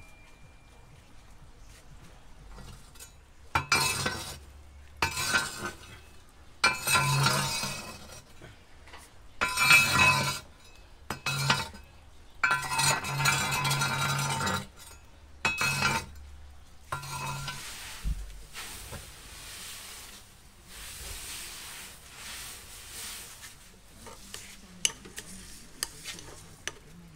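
A run of loud sounds, each a second or two long and holding a steady low pitch, fills the first half. Near the end a metal spoon stirs soft garlic butter in a small ceramic bowl, clinking against its side in quick ticks.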